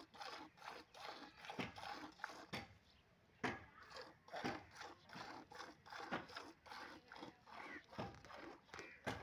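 Hand-milking: rhythmic squirts of milk from a cow's teats hitting the milk in a bowl, about three to four strokes a second, with a brief pause about three seconds in.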